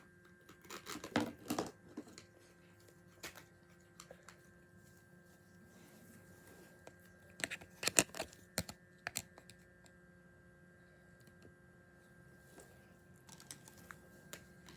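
Clicks and crackles from opening a small plastic slime container and handling the slime, in two short clusters about a second in and about eight seconds in, with scattered single clicks between.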